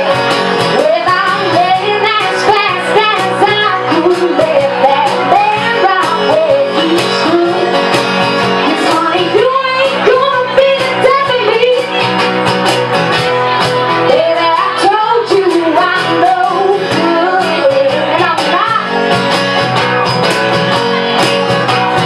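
A woman singing a melody into a microphone, accompanied by an acoustic guitar, in a live duo performance.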